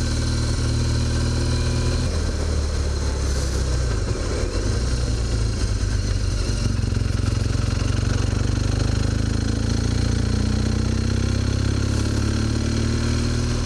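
BMW GS motorcycle engine running under way, heard from the rider's seat with wind and road noise. The engine note shifts about two seconds in and rises near the end as the bike accelerates.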